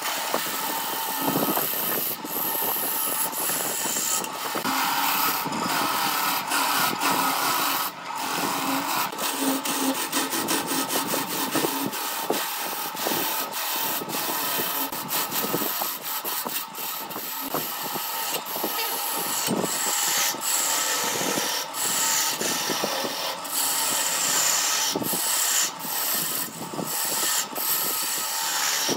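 Hand-held turning tool cutting a spinning glued-up wooden vase blank on a wood lathe: a steady scraping hiss of the cut, broken by frequent small ticks, over the lathe running.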